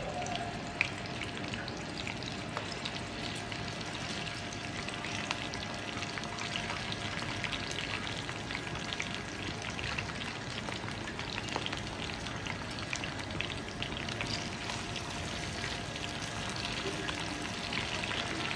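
Green chillies, cut lengthwise, frying in hot oil in a pan: a steady sizzle with scattered small crackles.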